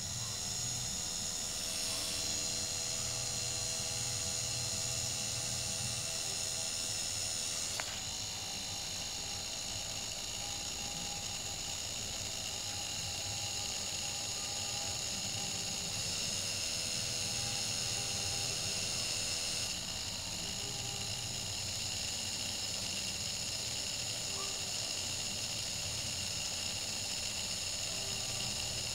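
Small electric motor of a homemade rotary subwoofer spinning its fan disc: a steady high-pitched whine that comes on suddenly at the start, with a low hum that swells and fades underneath.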